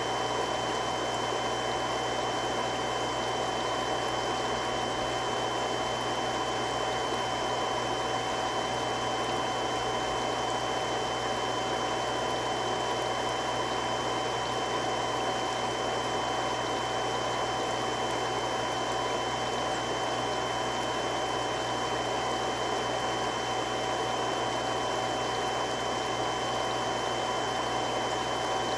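Three-stage irrigation water pump running steadily, water rushing through it with an even hum and a few constant whining tones.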